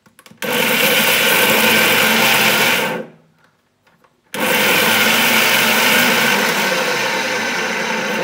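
Preethi mixer grinder running with its small steel jar, grinding coconut, dried red chillies and shallots into a coarse chutney. It runs in two pulses, about two and a half seconds, then after a short pause a longer one of about four seconds, each started with a click of the knob.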